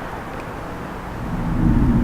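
A low droning rumble with a steady held hum, swelling louder past the middle.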